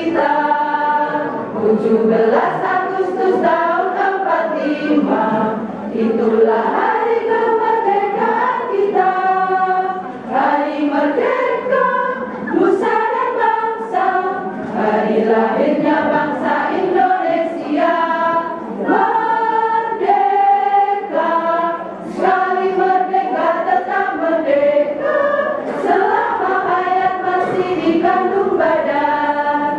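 Women's choir singing a sustained song together, unaccompanied, the voices held on long notes and moving through changing pitches.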